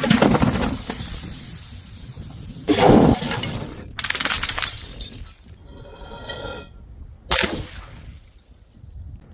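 Glass bottles shattering one after another: four sharp smashes about a second or three apart, each trailing off in tinkling shards, with a brief ringing of glass about six seconds in.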